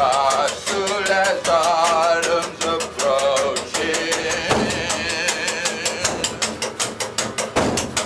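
A band playing live in a small elevator car: a fast, even clicking percussion with a wavering, vibrato-laden melody over it.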